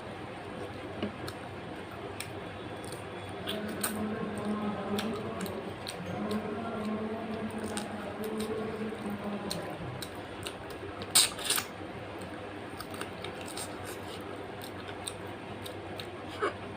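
A person eating close to the microphone: chewing and mouth clicks with scattered sharp smacks, a couple of louder clicks about two thirds of the way through. A low steady drone comes in a few seconds in and stops after about six seconds.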